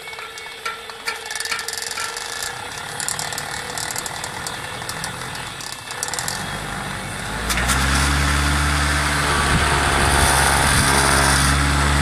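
Small 12-volt printer motor driving a soda-can siren rotor in stuttering spurts as a bare wire is tapped on and off, a rapid irregular clatter. About seven seconds in it settles into a steady, louder low hum with a rush of air from the spinning can.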